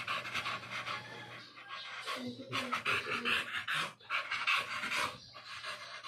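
American bully dog panting steadily with its mouth open and tongue out.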